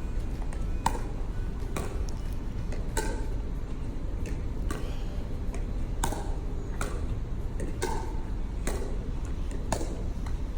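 Pickleball rally: sharp pops of paddles striking the plastic ball, back and forth about once a second, over a steady low rumble.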